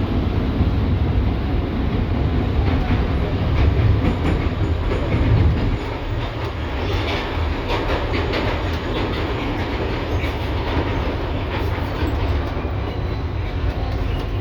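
LVS-2009 tram running along the track, heard from on board: a steady rumble of wheels and running gear with clicks from the rails. About six seconds in, the deep rumble eases and lighter clicking carries on.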